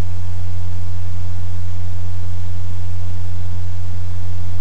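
A steady, loud low hum with a faint hiss over it: the noise floor of the recording, with nothing else happening.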